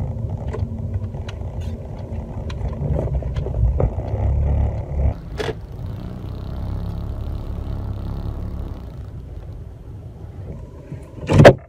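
Car running heard from inside the cabin as it turns into a snowy driveway, a low engine and tyre rumble that dies down as the car slows to a stop. The right turn signal ticks through the first few seconds. A sharp thump comes near the end.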